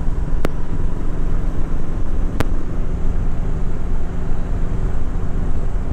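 Motorcycle engine running steadily at cruising speed under a dense low rush of wind and road noise. Two sharp ticks come through, about half a second and two and a half seconds in.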